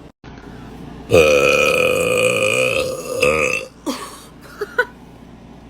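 A woman burping loudly: one long, drawn-out burp about a second in, then a shorter second burp, followed by a few faint small sounds.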